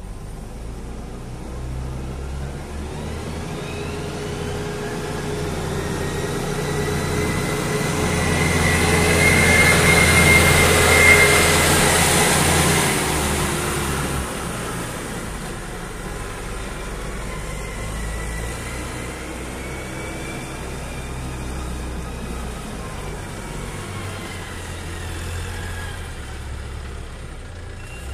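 Wolf WL825 compact wheel loader driving past: its diesel engine note grows steadily louder as it approaches, peaks about ten to twelve seconds in as it passes close, then fades as it drives away. A high whine runs above the engine note.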